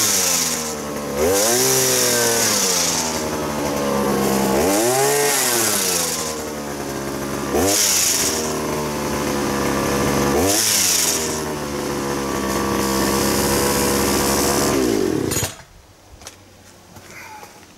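Petrol hedge trimmer attachment on a pole-saw power unit running, its engine revved up and eased off several times, then stopping abruptly about fifteen seconds in. This is a test run of a newly fitted, freshly oiled cutter blade.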